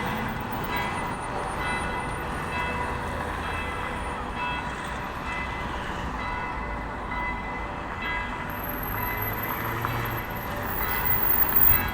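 Cathedral church bells ringing, struck again and again, with several bell tones ringing on together between strikes.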